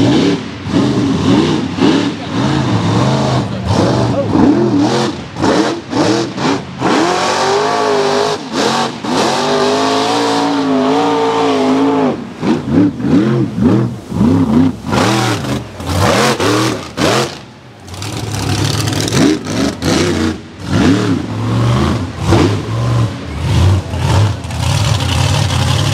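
Supercharged 540 cubic-inch big-block V8 of a mud truck revving hard in repeated bursts, its pitch sweeping up and down with sudden throttle cuts. Near the end the engine noise turns steadier.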